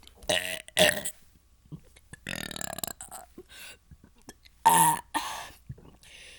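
A person burping over and over: a string of about six belches, one drawn out for most of a second about two seconds in, and the loudest about three-quarters of the way through.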